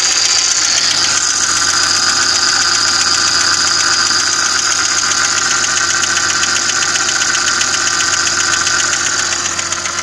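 Audi engine idling with a fast, even ticking knock, a clatter that the owner hears in an engine found two litres low on very black oil. It gets a little quieter near the end.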